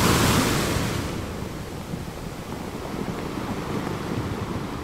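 Sea waves washing in: a rush of surf that swells at the start and slowly ebbs away, with some wind.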